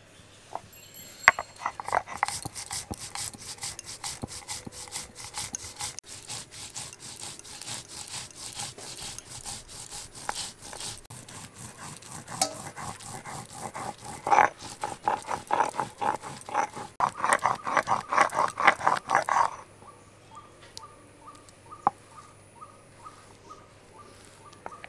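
Spices (mustard seeds, poppy seeds and green chillies) being ground to a paste by hand on a grinding stone: rhythmic rubbing, scraping strokes that stop about three-quarters of the way through. Faint repeated chirping follows.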